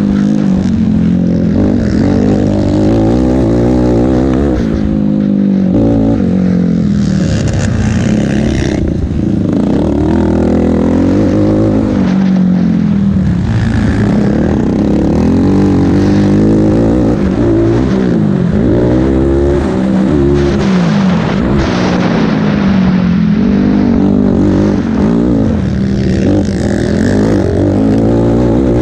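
Race ATV quad's engine heard from on board, its pitch rising and falling over and over as the rider accelerates and backs off around a dirt motocross track.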